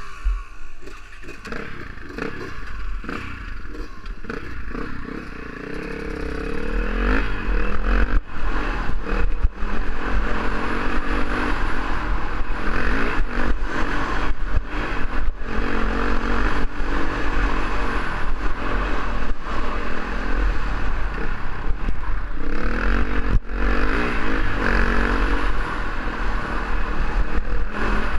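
KTM dual-sport motorcycle engine running low at first, then revving up and pulling away about six seconds in, its pitch rising. It then runs steadily under load up a dirt trail, with frequent rattles and knocks as the bike rides over rough ground.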